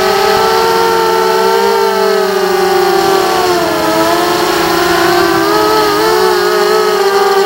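FPV quadcopter's electric motors whining at high speed: several close pitches that waver with the throttle and dip a little in the middle.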